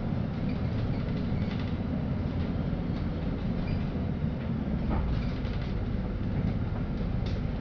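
Steady low engine rumble and cabin noise inside a LiAZ-5292.65 city bus, with a few faint clicks and rattles.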